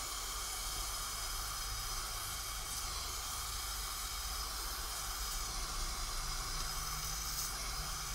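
Gas brazing torch flame hissing steadily while it heats an aluminium-to-copper refrigerator tube joint and filler rod is melted onto it.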